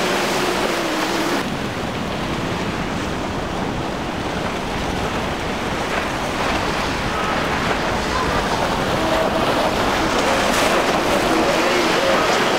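Outboard engines of a center-console boat running at speed, a faint shifting drone under the loud rush of spray, wake and waves, with wind on the microphone. The engine pitch rises and grows clearer near the end as the boat comes closer.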